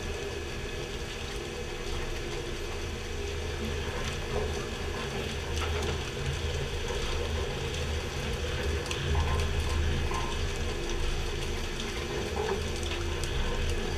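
A fishing boat's machinery running steadily, a low hum with a mechanical rattle, over the hiss of water spraying along the hull, with a few faint clicks.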